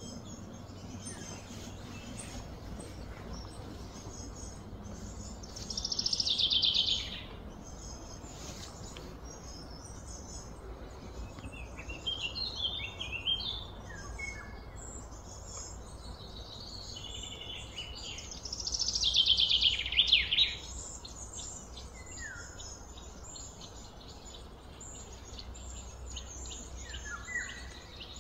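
Birds calling and chirping, with two louder falling trills about six and nineteen seconds in, over a steady low hum.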